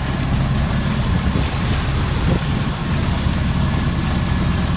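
Small sailboat's outboard motor running steadily under way, a low even rumble, with wind buffeting the microphone.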